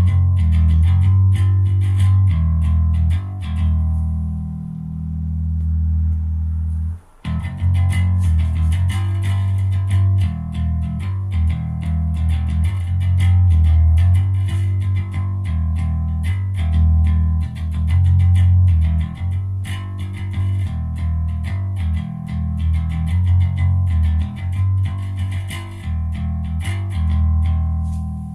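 Electric bass guitar played through a clone of an Ampeg SVT bass amplifier, a run of deep plucked notes changing every fraction of a second. The playing stops briefly about seven seconds in, then carries on.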